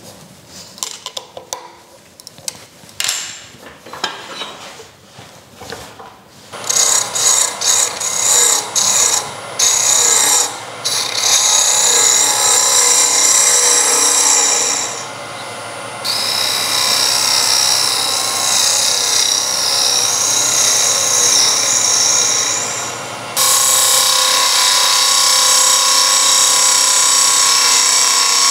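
Clicks and knocks as a wooden blank is tightened in a lathe chuck, then about six seconds in a gouge starts cutting the spinning wood: a loud scraping cut with a high whine, in short strokes at first and then longer passes that ease off briefly twice.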